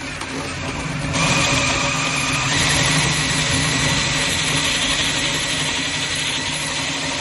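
Electric drill running a hole saw through a wood door: a steady motor whine mixed with the rasp of the saw's teeth cutting the wood. It gets louder about a second in as the saw bites, and runs on at a steady pitch.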